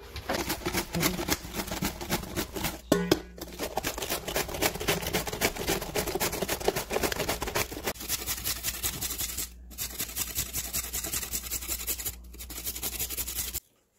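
Rapid, rhythmic rasping of vegetables being shredded by hand, several strokes a second: a cabbage shaved against a slicer blade, then carrots rubbed down a metal box grater. A low steady hum runs underneath, and the sound cuts off suddenly near the end.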